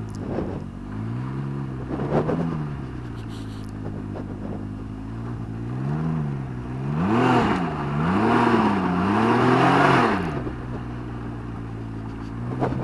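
Can-Am Ryker's three-cylinder engine through a Treal race exhaust, idling and blipped about six times, the pitch rising and falling back with each blip, the last few close together with a louder rushing noise over them.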